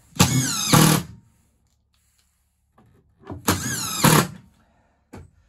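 DeWalt cordless impact driver driving screws into a wooden bed frame in two bursts, each about a second long, the second about three seconds after the first. A short click follows near the end.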